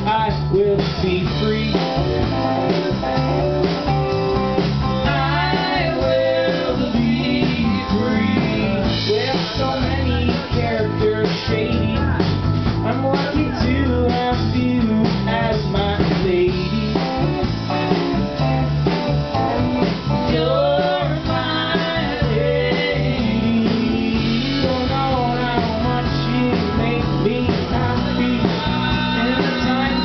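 A live band playing an amplified song: electric guitar, bass guitar, drum kit and keyboard, with singing over them.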